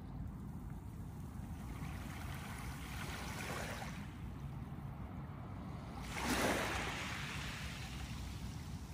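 Small waves washing up a pebble beach: two hissing washes of water over the stones, about three and a half and six and a half seconds in, the second louder, over a steady low rumble.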